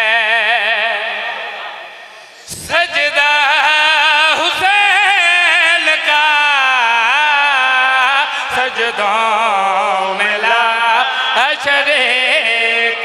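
A man chanting a devotional qasida in long, drawn-out melodic phrases with heavy vibrato and wavering ornaments. A held note fades out about two seconds in, and a new loud phrase starts half a second later and winds on through the rest.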